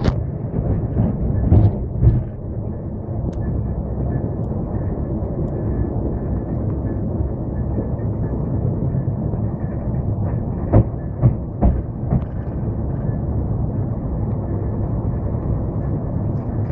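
Passenger train in motion: a steady low rumble with a few sharp knocks, two about a second and a half to two seconds in and three more around the middle.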